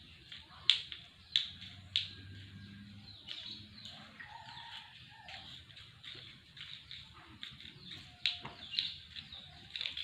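A metal spoon clinking and tapping against a hard surface as a cat bats it about: a handful of sharp, irregularly spaced clicks.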